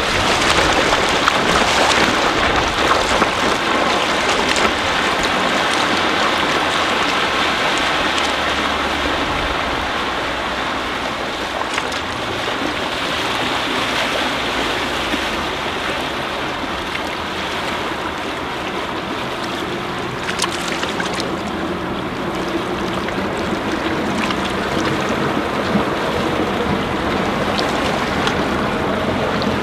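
A 2006 Four Winns 215 Sundowner's MerCruiser 4.3-litre MPI V6 sterndrive running with the boat underway, over steady rushing water.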